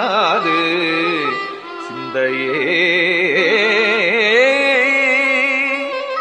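Tamil devotional hymn sung over a steady drone, the voice sliding and shaking around its notes in a classical South Indian style.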